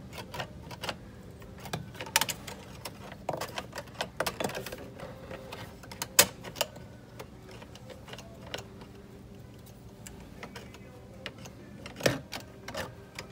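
Irregular clicks, taps and light rattles of a wire being fished through the inner metal frame of a car door, with sharper knocks about six seconds in and again near the end.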